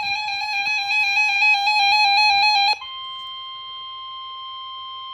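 A loud warbling electronic alert tone cuts off about three seconds in and is replaced by a steady single-pitch alarm tone: the NOAA Weather Radio 1050 Hz warning alarm, which signals that a warning (here a severe thunderstorm warning) is about to be read.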